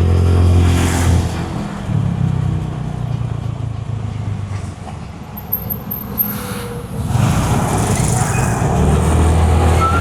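Road vehicle engine running with road noise, quieter through the middle and louder again toward the end.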